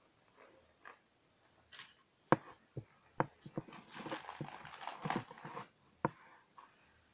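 A spiral-bound paper notebook being handled: a few sharp knocks, the loudest about two seconds in, and paper rustling in the middle as the notebook is picked up.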